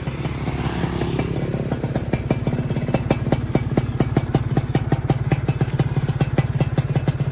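Yamaha F1ZR two-stroke single-cylinder engine idling steadily with an even, rapid firing beat. It is being run in so that its new piston and new cylinder block can bed in; the carburettor jets are not yet tuned.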